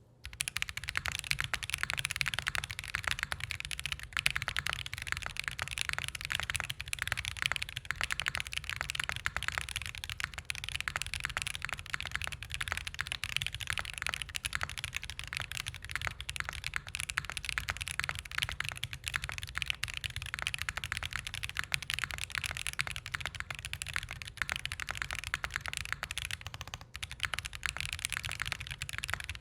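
Fast, continuous typing on an XOX70 mechanical keyboard with White Jade tactile switches in an aluminium plate and no foam inside: a dense run of key clacks, with a short pause near the end.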